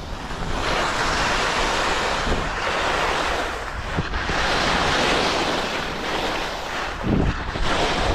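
Skis sliding and scraping over hard-packed snow at speed down a steep slope: a continuous rushing hiss that swells and eases through the turns. Wind buffets the camera microphone underneath.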